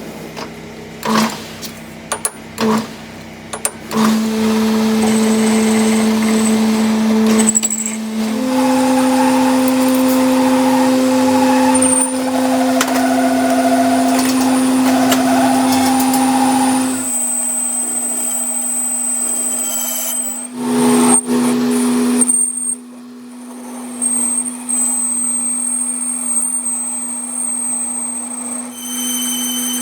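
Metal lathe running with a steady motor hum. It starts with a few knocks, and the pitch steps up twice in the first several seconds. A hissing cutting noise rides over the hum until about halfway, then drops away, leaving the hum and a thin high whine, with a few more knocks in between.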